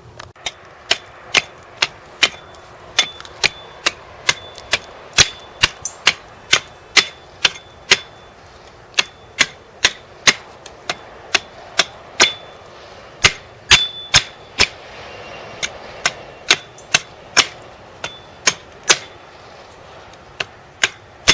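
Hammer blows on a metal stake or rod, driving a hole into the ground for a sonic spike: sharp strikes with a short metallic ring, about two a second, with a short pause about two-thirds of the way through.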